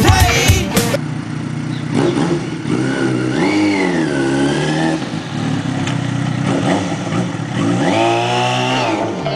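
Music for about the first second, then a sport motorcycle's engine running and revved twice: a short rise and fall in pitch, then later a longer rev held briefly before dropping back.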